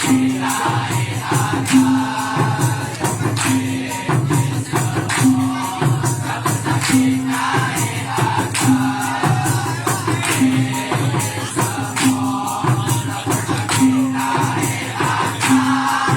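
Dikir barat ensemble playing: hand percussion with shakers drives a fast beat, a short low note repeats about every second and three-quarters, and a chorus of voices sings together.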